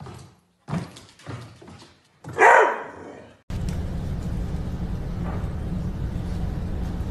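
Dog barking once, loudly, about two and a half seconds in, after a few quick clicks and knocks. From about three and a half seconds in, a steady low hum.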